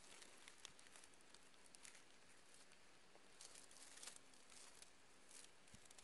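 Near silence, with faint scattered rustling and crackling of leaves and dry grass stems as wild strawberries are picked by hand.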